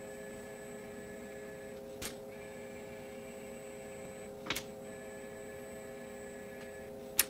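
FANUC LR Mate 200iD robot arm running a pick-and-place cycle: a steady electric hum and whine from its servo drives, with three sharp clicks about two and a half seconds apart as its gripper opens and closes, the last the loudest.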